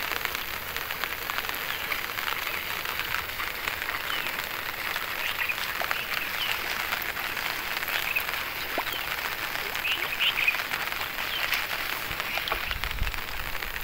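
Light rain falling on open water: a steady patter of drops on the surface, with a few faint short chirps now and then.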